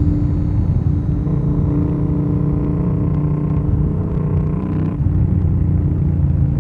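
2025 Yamaha MT-07's parallel-twin engine running at steady cruising revs, heard from the rider's seat. Its note sags and shifts about five seconds in.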